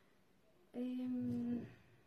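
A woman's voice sounding one steady, wordless note, like a short hummed 'mmm', for nearly a second. It starts a little under a second in and stops cleanly.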